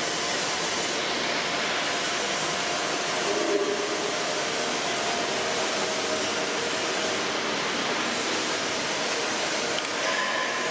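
Steady rushing noise with a faint hum, broken by a single light knock about three and a half seconds in.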